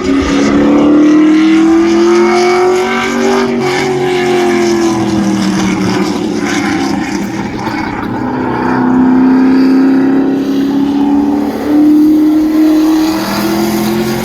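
A 427-cubic-inch V8 race truck engine held at high revs to heat the tyres before a drag pass. The revs climb over the first few seconds, ease off, then rise again in two steps near the end.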